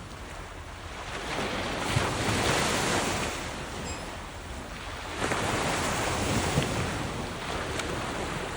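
Pacific Ocean surf: waves breaking and washing ashore, swelling twice, with wind rumbling on the microphone.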